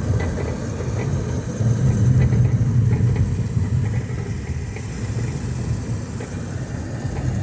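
Steady low rumble of a vehicle in motion, engine and road noise together, swelling slightly for a couple of seconds partway through.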